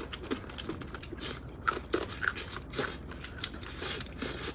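Close-up eating sounds: chewing and biting into a chicken drumstick, heard as a string of short irregular wet clicks, with a hissy slurp of noodles near the end.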